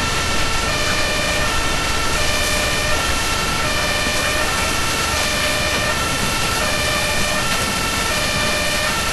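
Emergency-vehicle two-tone siren (German Martinshorn) sounding, switching steadily between a high and a low pitch, over steady background noise.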